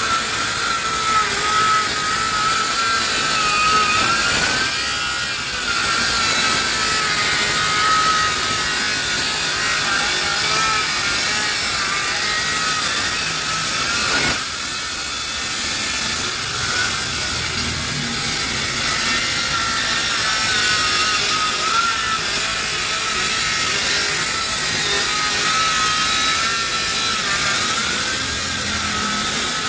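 Dongcheng DCMY185 cordless 7-inch circular saw ripping lengthwise through a thick board of hard, heavy wood. The blade's whine wavers in pitch as the motor works under load.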